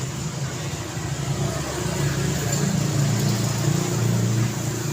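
Road traffic: a steady rumble of vehicle engines and tyres, growing louder from about two seconds in as the low engine sound swells.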